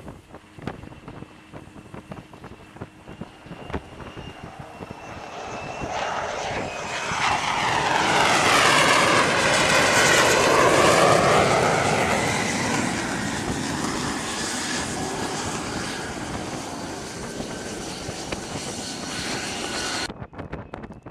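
F-35C fighter's jet engine coming in close, swelling to a loud peak with a sweeping whoosh about nine to twelve seconds in, then slowly fading. Wind buffets the microphone at the start and again after an abrupt cut near the end.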